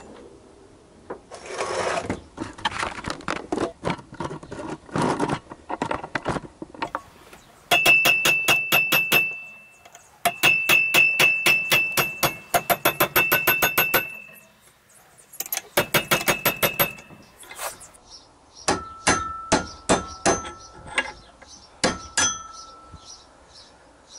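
Runs of rapid hammer blows on steel, several strikes a second with a ringing metallic note, driving a motorcycle steering-stem tapered roller bearing into place. The runs stop and start with short pauses, after a few seconds of scraping and handling knocks.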